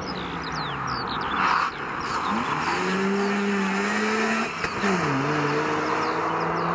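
A Mazda RX-7 FC's naturally aspirated 13B twin-rotor engine is accelerating through a tight course. Its note climbs, drops sharply about five seconds in, then climbs again. Birds chirp in the background.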